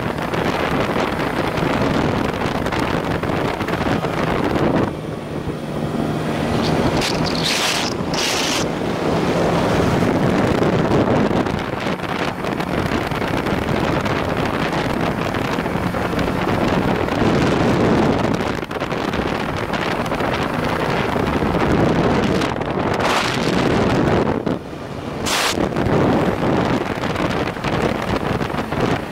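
Steady wind roar on the microphone of a BMW R1100RT motorcycle under way, with the bike's 1100 cc boxer-twin engine running faintly underneath. A few short bursts of hiss at about seven to eight seconds in and again near the end.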